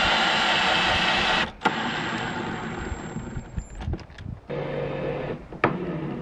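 Cordless drill-driver driving screws into a wooden window frame, running in two bursts: a long one of about a second and a half at the start, then a shorter one about four and a half seconds in, followed by a sharp click.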